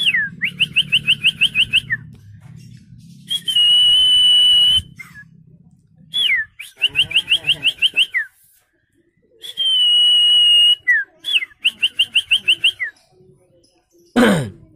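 A man whistling an imitation of a songbird, with no device. Each phrase is a long, high, held note, a quick falling slur, then a run of about eight fast rising chirps, and the phrase comes three times. Near the end there is a single sharp sweep falling from very high to low.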